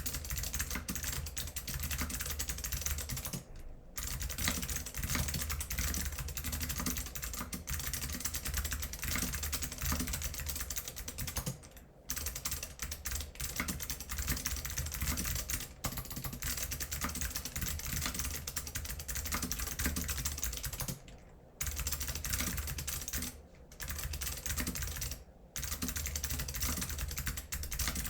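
Fast, continuous typing on a LinWorks Montage PC mechanical keyboard with unlubed Alps SKCM Blue clicky switches and PBT keycaps: a dense clatter of key clicks, broken by a few short pauses.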